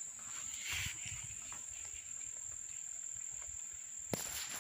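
Insects, crickets or the like, keeping up one steady high-pitched drone, with a brief rustle about a second in and a single sharp click near the end.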